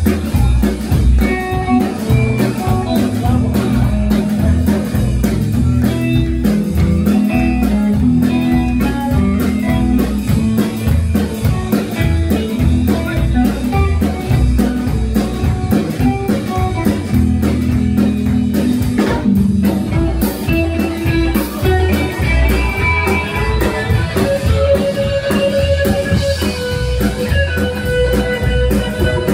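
Live band playing: plucked upright double bass, electric guitar and drums, with the guitar's melody line standing out more in the last few seconds.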